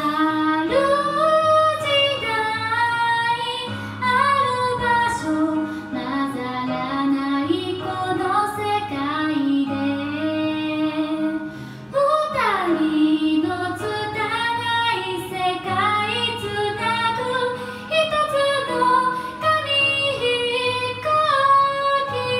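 A woman singing a Japanese song into a karaoke microphone over a backing track, with a pitch swoop about halfway through.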